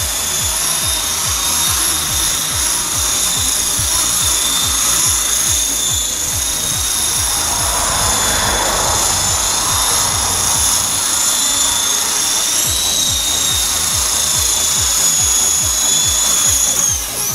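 Small electric Century Evolution 180 SE RC helicopter in flight, its motor and rotors giving a steady high whine that drops in pitch as it spools down near the end.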